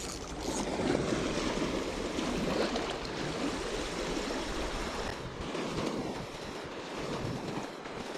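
Sea surf washing against rocks, a steady rushing wash that swells in the first few seconds.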